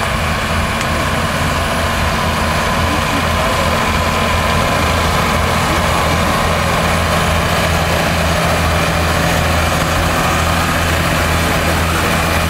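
Claas Arion tractor's diesel engine running steadily under load as it drives a Lemken power harrow and seed drill through the soil: a constant low engine drone.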